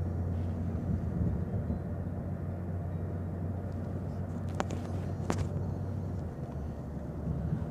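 Van cabin noise: a steady low engine and road drone, with two sharp clicks a little past halfway through, under a second apart.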